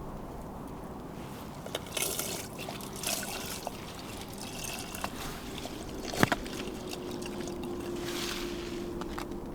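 Water trickling and sloshing as it is poured into a camp cook pot, with a few light clinks and one sharp click about six seconds in, over a faint steady hum.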